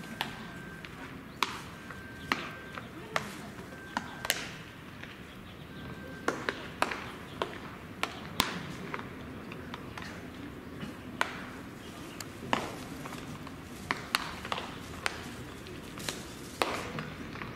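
Baseballs popping into leather gloves during catch practice: sharp, irregular pops, some louder and nearer than others.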